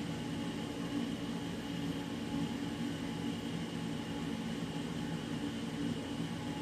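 Steady machinery hum with constant low tones over an even hiss, like ventilation or running equipment, unchanging throughout.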